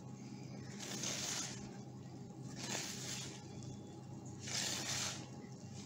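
Spoon stirring a thick, wet scone dough of self-raising flour, lemonade and cream in a bowl: soft squelching scrapes in slow strokes, about one every second and a half, as the mixture starts to come together.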